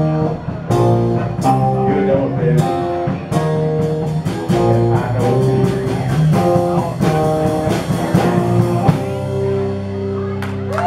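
Live rock band with electric guitars, bass and drums playing an instrumental passage of rhythmic chord hits. About nine seconds in it settles on one held, ringing chord, with a quick run of drum and cymbal hits near the end as the song finishes.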